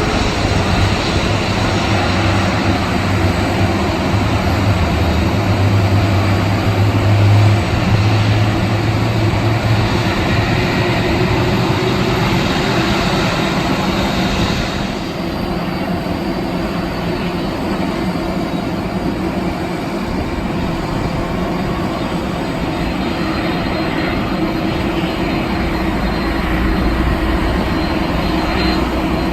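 Jet airliner engines running, a loud continuous rushing rumble. About halfway through, the higher hiss drops away suddenly, leaving a lower rumble.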